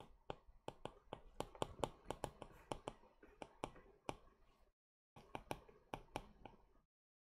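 Faint, irregular clicks and taps of a stylus on a tablet screen during handwriting, a few a second, with short pauses between strokes.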